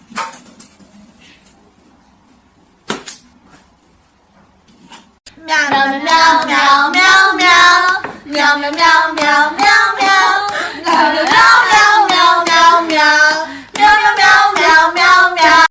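A few soft knocks, then from about five seconds in a loud, high voice singing with a wavering, bending pitch.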